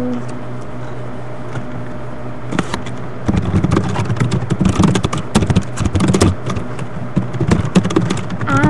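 Typing on a computer keyboard: rapid, irregular key clicks close to the microphone, starting about two and a half seconds in, over a steady low hum. A short hummed note comes in near the end.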